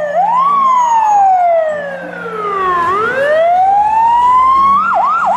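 Fire engine siren sounding in slow sweeps. The pitch rises, falls for a couple of seconds, rises again, dips twice quickly near the end, then holds a steady high note.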